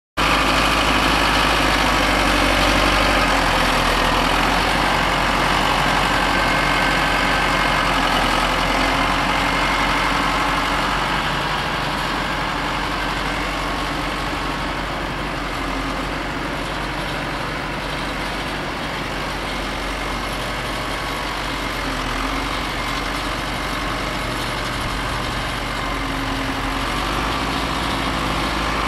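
Diesel tractor engines running steadily as tractors work the silage pit, easing a little midway and building again toward the end.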